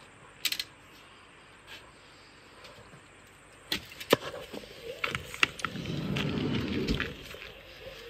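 A camper van's side door being handled: a brief jingle about half a second in, then sharp clicks and knocks, and a rumbling about two seconds long near the end.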